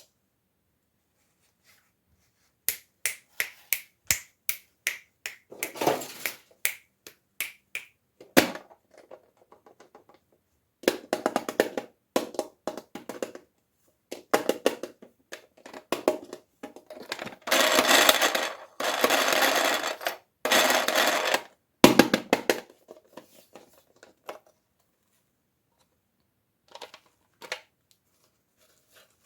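Toy packaging being handled and opened by hand. First comes a run of quick, sharp clicks at about three a second. Then come several longer bursts of crinkling and scraping, the longest about four seconds.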